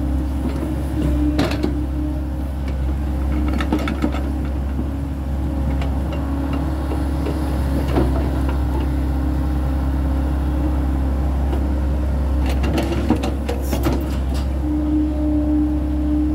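SANY crawler excavator's diesel engine running steadily under working load, with a whining tone that swells and fades as the boom and bucket move. Scattered knocks and cracks come as the bucket digs into soil and chopped palm fronds.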